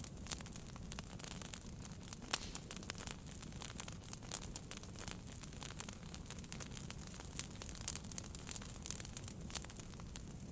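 Wood fire burning in a fireplace, with irregular sharp crackles and pops over a low rumble of flames.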